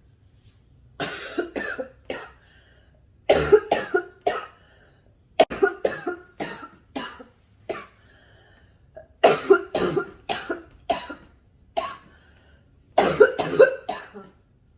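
A smoker coughing hard in five fits of several coughs each, with short pauses between the fits.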